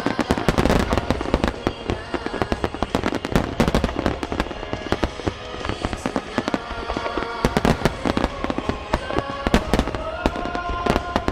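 Fireworks going off in a dense, rapid barrage of bangs and crackles, many in quick succession, over music with long held notes.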